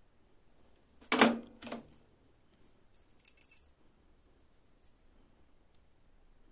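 Metal clatter as a steel ring mandrel is handled on the bench: a loud clank about a second in, then a few faint high metallic clinks as the twisted copper wire ring slides onto the mandrel.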